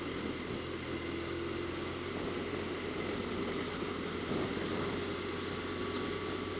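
BMW R1200RT's boxer-twin engine running steadily at cruising speed, mixed with wind and road noise. The sound stays even throughout, with no revving or shifting.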